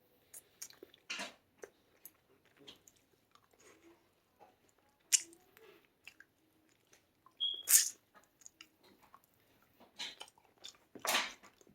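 Close-up chewing of a mouthful of food, with scattered soft clicks and mouth noises and a louder burst near the end.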